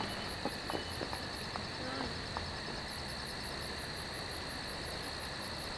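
Crickets chirping in a fast, even rhythm of about five high chirps a second, over steady background noise. The chirping breaks off for a second or so, then resumes.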